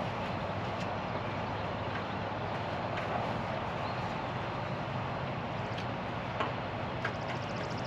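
Steady outdoor background noise with a few faint, scattered light clicks, and a quick rattle of fine ticks about seven seconds in.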